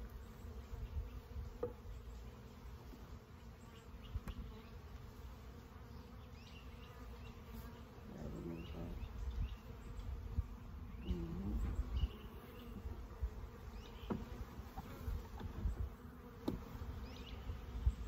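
Honeybees humming steadily around an open hive as a package of bees is installed, with a few short sharp clicks and low rumbling from close handling.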